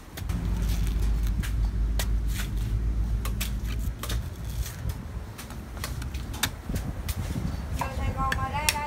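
Machete chopping and shaving the fibrous husk off a green coconut: a string of sharp chops at uneven intervals. A low steady hum runs under the first half.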